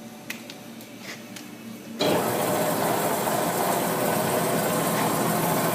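Marvel Series 8 Mark II vertical bandsaw starting up about two seconds in and then running steadily, after a few faint clicks.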